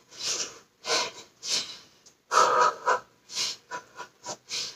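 A woman's quick, forceful breaths out, roughly two a second, as she throws hard punching jabs, one puff per punch.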